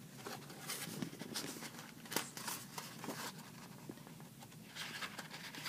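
Faint, scattered rustles and soft ticks of a paper picture-book page being handled and turned.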